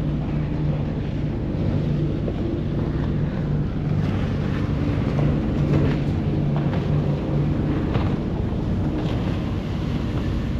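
Passenger ferry's diesel engine running with a steady low hum, over the rush of water churned up in the wake and wind buffeting the microphone.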